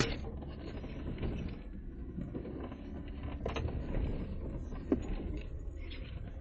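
Jeep Wrangler Rubicon crawling slowly over a rutted snowy trail, heard from inside the cab: a steady low engine and drivetrain rumble. A few sharp knocks come as it jolts over the ruts, the loudest right at the start, and others about three and a half and five seconds in.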